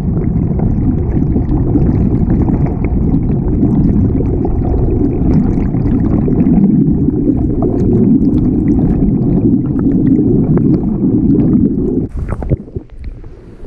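Turbulent stream water and air bubbles rushing around an underwater camera, heard as a loud, steady low rumble. About twelve seconds in it drops away abruptly, with a few brief knocks.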